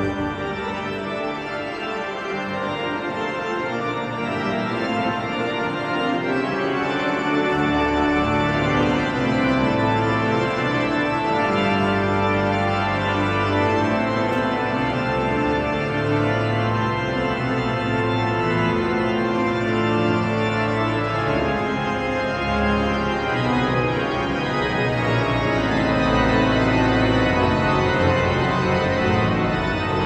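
St. Stephen's Cathedral pipe organ playing the recessional at the end of Mass: full sustained chords, with deep pedal bass notes coming in about seven seconds in.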